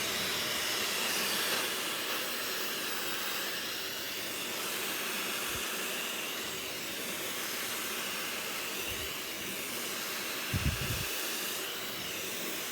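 Chignon bladeless hair dryer running with a concentrator nozzle on, a steady airflow hiss. A few brief low thumps about ten and a half seconds in.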